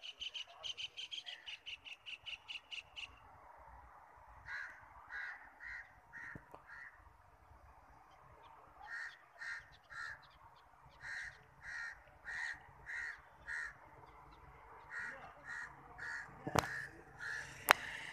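Birds calling: a quick run of about fifteen high calls, about five a second, then repeated calls in short groups of two to four. Two sharp clicks near the end are the loudest sounds.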